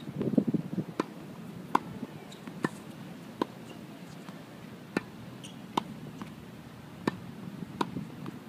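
Tennis ball hit back and forth with rackets in a quick exchange at the net: a string of sharp pops about once a second, some louder than others. A short low rustle comes at the start.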